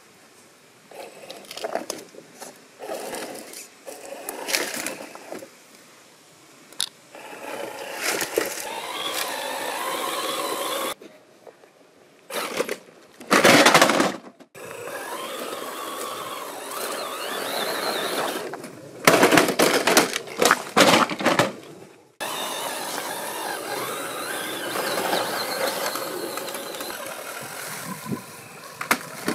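1/8-scale RC crawler truck's 550-size electric motor and gear drive whining, rising and falling in pitch with the throttle, while its tyres scrape and scrabble over rock. Several loud scraping stretches stand out, and the sound cuts off abruptly a couple of times.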